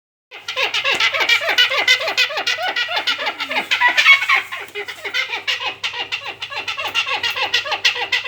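Tame hornbill calling in a fast, unbroken series of short falling notes, about five a second.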